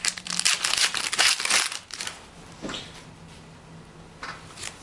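Crinkling and rustling of a foil trading-card pack wrapper and cards being handled. Dense and loud for about the first two seconds, then a few brief rustles.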